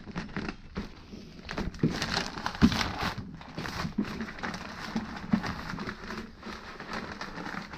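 Butcher paper rustling and crinkling as gloved hands fold and press it around a brisket, with a few short soft thumps as it is pressed down on the table, the loudest about two and a half seconds in.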